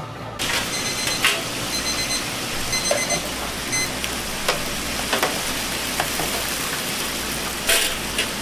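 Chicken wings and karaage deep-frying in a commercial fryer: a dense, steady sizzle of hot oil, with a few sharp metal clinks from tongs and tray. An electronic kitchen timer beeps in three short runs during the first few seconds.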